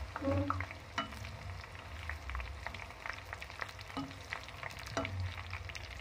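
Papri (flat dough crisps) frying in hot oil in a kadhai: a dense crackling sizzle, with a few louder knocks of a spoon stirring them.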